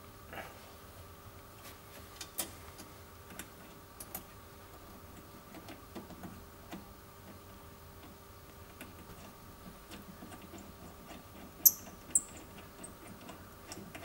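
Small metallic clicks and taps of a copper electrode being fitted and screwed into the perspex disc of a homemade rotary spark gap, with two sharper clicks near the end.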